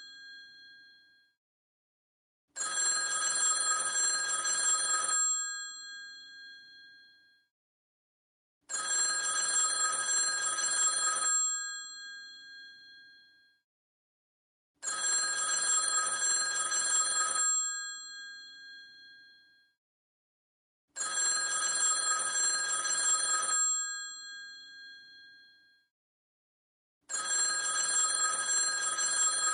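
Old rotary telephone's mechanical bell ringing in a repeating cadence. Each ring lasts about two and a half seconds and fades out after it stops, followed by a pause of about three and a half seconds. Five rings in all, starting as the tail of an earlier ring dies away.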